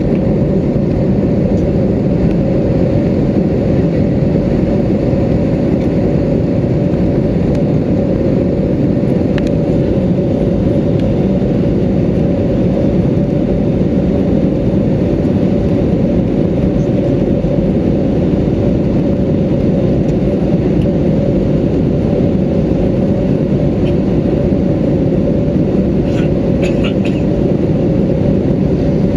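Steady, loud cabin noise of an Airbus A320neo in flight: a low engine and airflow rush with a constant hum.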